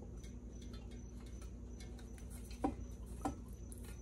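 Faint ticks and two short knocks, a little over half a second apart near the end, as hoses and fittings are worked loose on a stripped-down outboard engine block. A steady low hum runs underneath.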